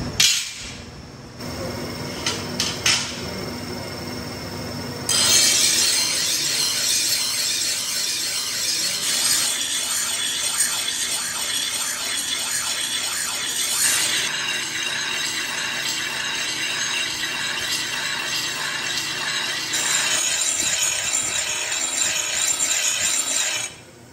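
Steel cleaver blanks clinking as they are laid down on a pile. About five seconds in, a motor-driven grinding wheel starts grinding a leaf-spring steel cleaver blade, a steady grind that changes tone a couple of times as the blade is moved and stops suddenly near the end.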